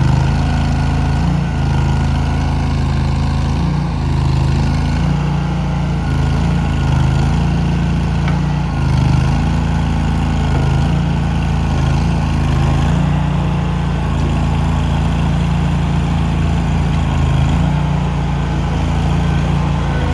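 Engine of a DIG-IT 198T backhoe loader running steadily, its tone shifting slightly every few seconds as the load changes.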